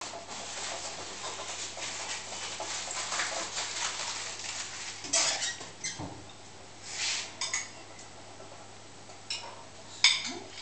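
Dishes and cutlery clinking as they are handled at a kitchen counter and sink. Rapid clatter for the first half, then a few separate sharp clinks, the loudest near the end.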